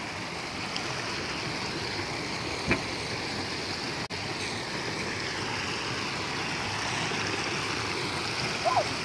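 Shallow stream rushing and foaming over rocks, a steady wash of water, with a single knock about two and a half seconds in.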